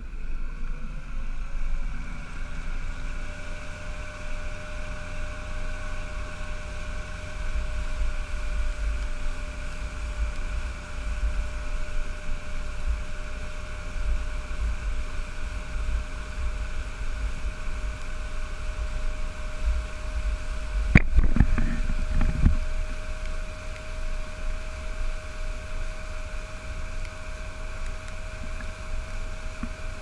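Honda 150 four-stroke outboard motor running under load as it tows a skier. Its pitch rises over the first couple of seconds as the boat gets up to speed, then holds steady over the rush of water and wake. A single sharp knock with a brief loud rumble comes about two-thirds of the way through.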